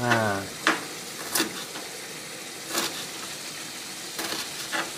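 A knife slicing shallots thinly on a chopping board, about five separate sharp cuts spread a second or so apart, over the steady sizzle of chili-and-spice paste frying in oil in the pan.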